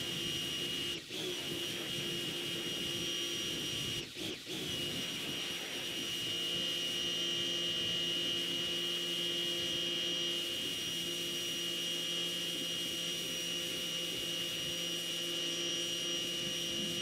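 Rock&Rocker electric pressure washer running with a steady whine while spraying water through its 25-degree tip to rinse soap off a car wheel, the spray hissing. The sound dips briefly twice, about one second and about four seconds in.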